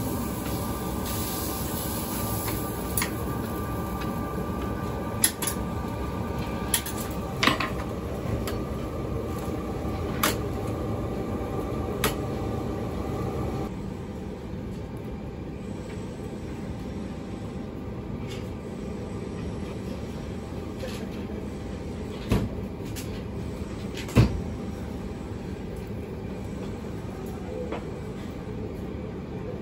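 Metal utensils and tongs clicking and knocking against a steel griddle and serving trays, scattered single strikes over a steady background rumble. The rumble drops slightly about halfway through, and the two loudest knocks come after that.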